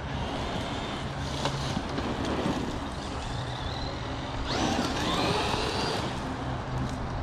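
Traxxas Maxx RC truck's brushless electric motor whining over a haze of tyre and ground noise, revving up sharply about four and a half seconds in with a rising whine that fades out a second and a half later.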